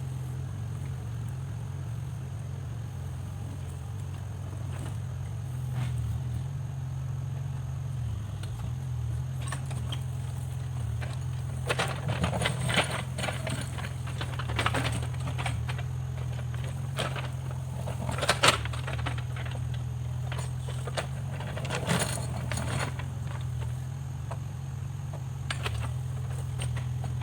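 Backhoe loader's diesel engine running steadily, with bursts of metallic clattering and knocking in the middle, from the machine's bucket and linkage at work.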